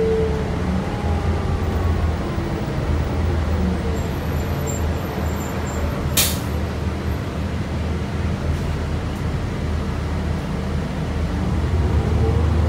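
Interior of a New Flyer C40LFR transit bus in motion, its Cummins Westport ISL-G natural-gas engine and Allison transmission giving a steady low hum. A thin whine falls in pitch over the first few seconds. A short, sharp hiss of air from the air brakes comes about six seconds in. Near the end the whine rises again as the bus gathers speed.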